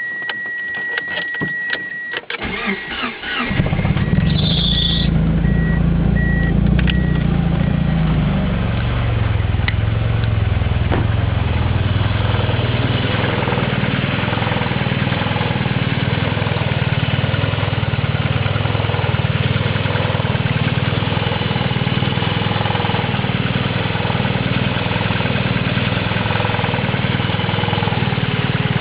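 1992 Mitsubishi Eclipse GSX's turbocharged 2.0-litre four-cylinder cranked and catching about three seconds in, then running steadily, its idle settling lower about eight seconds in. It makes a racket after a morning no-start, which the owner hopes is just a spark plug wire, coil pack or injector. A high steady beep at the start turns into short repeated beeps.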